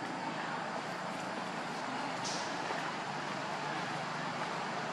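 Steady outdoor background noise with no distinct events, and a brief high hiss about two seconds in.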